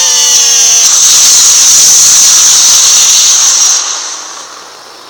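Loud hissing noise, like static, with a falling squealing tone in the first second; it holds steady for about three more seconds, then fades out.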